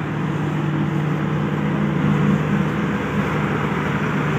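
Diesel generator set in a standing train's power van running steadily at constant speed, a low drone holding one pitch.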